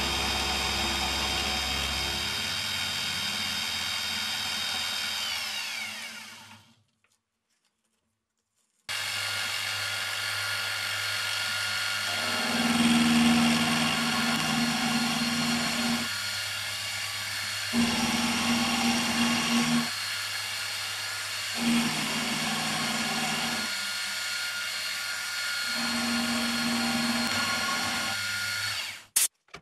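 Milling machine spindle turning an end mill that side-cuts a rusty steel block held in a vise. The whine slides down in pitch and stops about six seconds in. About two seconds later it runs again, with a louder low hum coming and going in several stretches as the cutter takes load in the steel, and it cuts off abruptly near the end.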